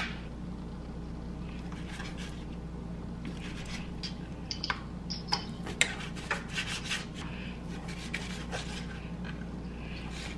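Knife cutting raw bacon on a cutting board: irregular taps and scrapes, starting a few seconds in and bunching toward the middle, over a steady low hum.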